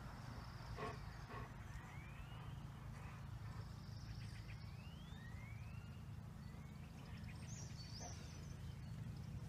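Faint open-air ambience with a steady low rumble, crossed by several short rising whistled calls, three of them clear within the first six seconds.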